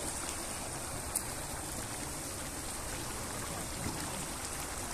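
Huge cauldron of rice for Kabuli pulao boiling over a wood fire: a steady bubbling hiss, with one small click about a second in.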